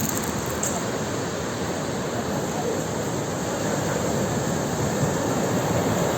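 Sea surf: waves breaking and washing in as a steady roar that swells slightly in the second half.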